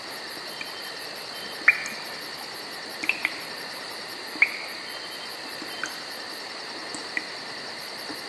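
Crickets chirping steadily in a fast, even pulse, with a few short sharp chirps or clicks over it, the loudest about a second and a half in and another near the middle.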